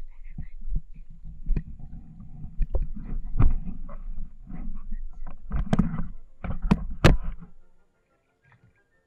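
Low rumble with irregular sharp knocks from wind and handling on a handheld camera's microphone. It cuts off abruptly near the end.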